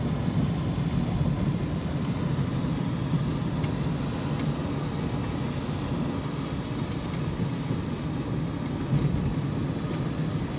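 Inside the cabin of a 1994 Toyota Camry with its 2.2-litre four-cylinder, driving steadily at around 30 mph: a low, even hum of engine and road noise.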